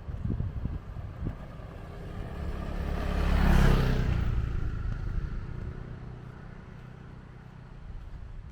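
A motor vehicle passing by. It grows louder to a peak about three and a half seconds in, then fades, and its engine note drops in pitch as it goes past.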